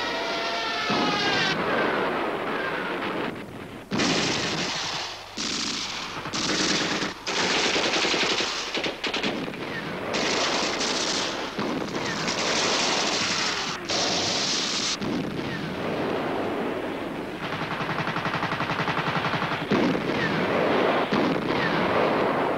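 Machine-gun fire in repeated bursts that start and stop sharply, with a longer continuous burst near the end.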